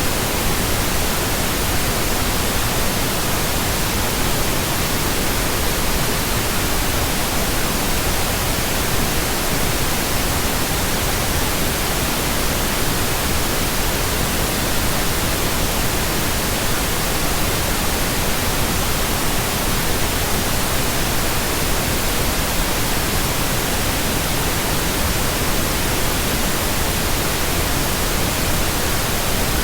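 Steady, unbroken pink noise: a synthetic hiss spread evenly from low to high, with no tones, clicks or changes in level.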